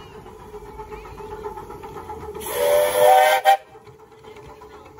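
Miniature steam locomotive's whistle giving one loud blast of just over a second, several tones sounding together over a hiss of steam, ending with a short extra toot.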